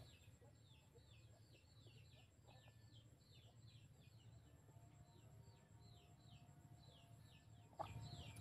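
Faint, steady series of short falling bird chirps, about three a second, over a low background hum, with a soft knock near the end.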